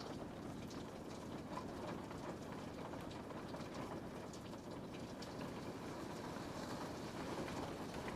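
Steady rain falling on a window, with many small drops ticking against the glass over an even wash of noise.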